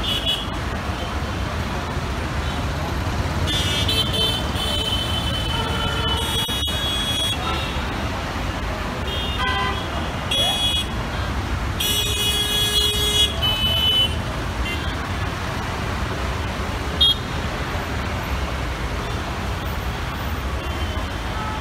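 Heavy, slow-moving city traffic of cars, auto-rickshaws, buses and trucks: a steady engine and tyre rumble with repeated horn honks, most of them between about four and fourteen seconds in. A single short, sharp knock stands out a little after that.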